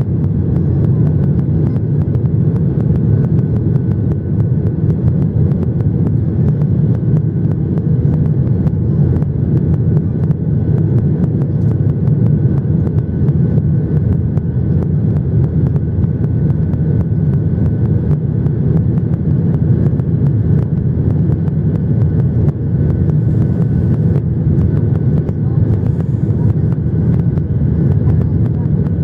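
Steady low rumble of a Boeing 737-800 in flight, its CFM56-7B engines and the airflow heard from inside the cabin.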